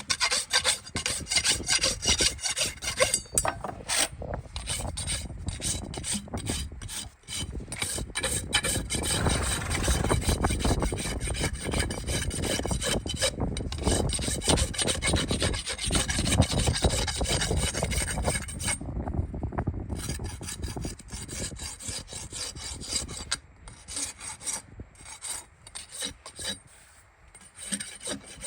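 Farrier's rasp filing a horse's hoof in quick, repeated scraping strokes.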